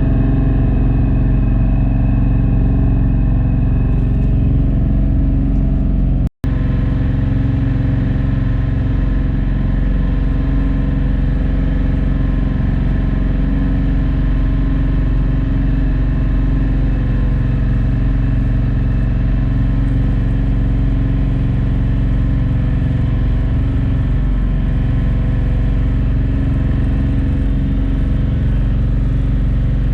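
A ferry's engine running steadily at cruising speed, heard on board as a loud, even drone with a constant hum. It cuts out completely for a moment about six seconds in.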